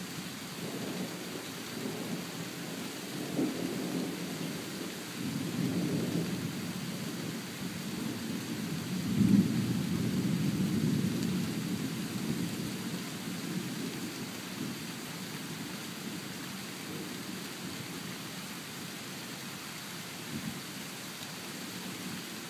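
Thunder rumbling in several rolls, the loudest about nine seconds in, then dying away, over a steady hiss of rain.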